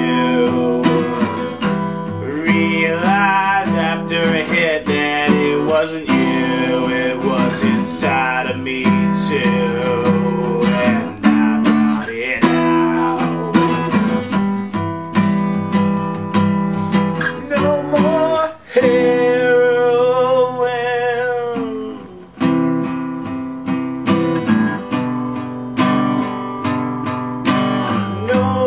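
Acoustic guitar strummed steadily while a man sings a slow melody over it, holding one long wavering note about two-thirds of the way through.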